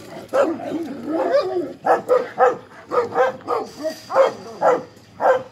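Dogs barking repeatedly behind a fence, short barks at about two a second.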